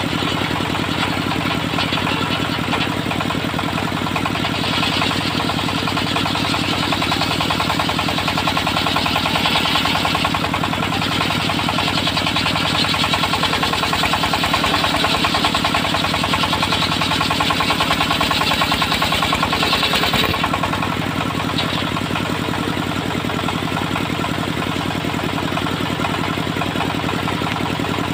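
Engine of a homemade circular sawmill running steadily. From about five seconds in until about twenty seconds the spinning blade cuts through a timber log, adding a higher rasping noise over the engine. After that the blade runs free with no load.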